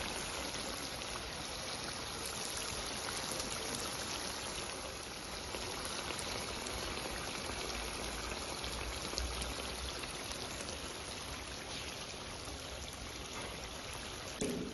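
Mutton karahi bubbling in oil in a karahi pan: a steady sizzle flecked with many tiny pops.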